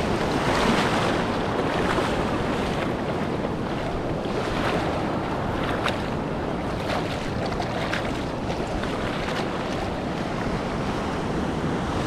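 Small surf waves breaking and washing over shallow sand, the foam fizzing and hissing, with wind buffeting the microphone as a low rumble.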